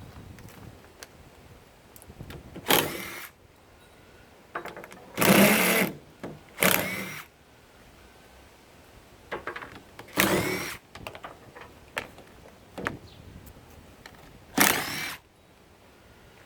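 Cordless power drill/driver spinning out fasteners in about five short bursts, its motor whine rising and falling with each trigger pull. Small metallic clicks come between the bursts.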